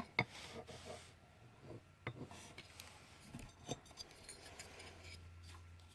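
Light clicks and taps from handling the parts of a speaker being taken apart, a few separate knocks over a faint steady hum.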